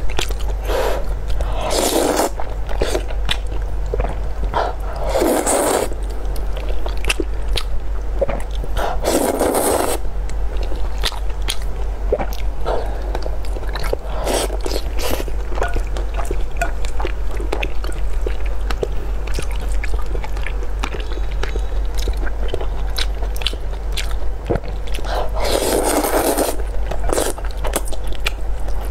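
Noodles slurped in four long pulls, with wet chewing and small clicks in between. A steady low hum runs underneath.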